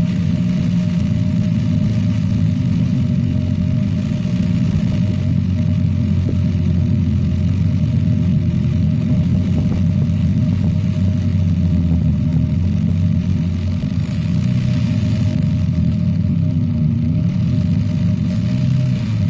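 Corded hammer-action power drill boring into solid rock, its motor and hammer mechanism running steadily with a few brief dips in pitch as the bit loads.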